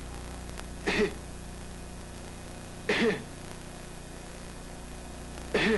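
A man coughs forcefully three times, about two seconds apart, on request while a fiber-optic scope is in place to watch his larynx.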